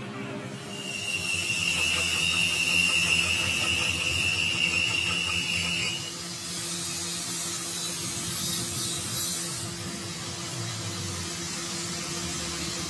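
Metal lathe turning a truck crankshaft journal: the cutting tool gives a steady high-pitched squeal over the hum of the lathe, which stops abruptly about six seconds in. After that the spinning crankshaft and lathe run on with a steady hiss and hum.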